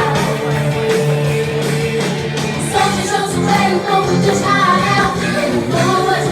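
Upbeat Christian praise song played live by a band with a steady bass line, with singing voices.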